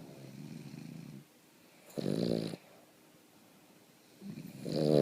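Boston terrier snoring in its sleep: a softer rattling breath at the start, then two loud snores about two and a half seconds apart, the second near the end.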